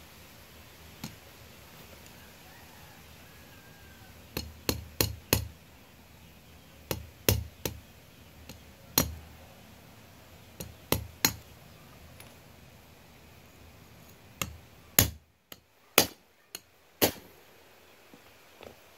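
A hammer strikes a punch set against a motorcycle drive chain, driving out a tight chain pin so the chain can be cut. There are about seventeen sharp metal blows, mostly in quick clusters of two to four, with pauses of a second or more between the clusters.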